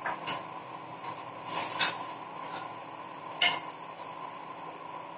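Vegetables sautéing in oil in a covered pan: a steady hiss with a handful of short sharp pops and crackles.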